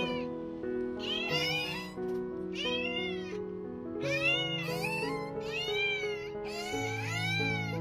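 Newborn puppies crying: about six high, whining cries that rise and fall in pitch, each lasting under a second. Background music plays underneath.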